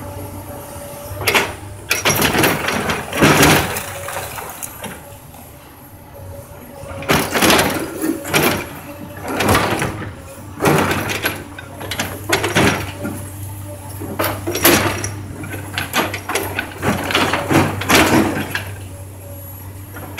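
Komatsu PC200 excavator's diesel engine running steadily under load while its bucket smashes into a house. Wood and rubble crash and crunch in repeated loud bursts every second or two.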